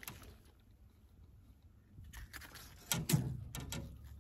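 Handling noise while a crappie is unhooked: scattered light clicks and rustles, with a heavier knock about three seconds in.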